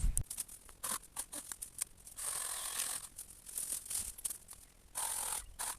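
Rustling and crackling of cut shrub branches and leaves being handled, with scattered clicks and two longer rasping bursts, about two seconds in and near the end.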